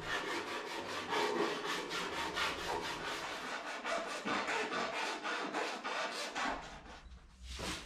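A hand file drawn in rapid, even back-and-forth strokes along the edge of an aluminum sheet-metal part, deburring it. The strokes stop near the end.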